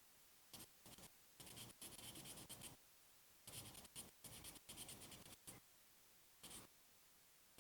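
Faint quick scraping strokes on a surface, in two runs of a second or more, with a few single strokes before, between and after.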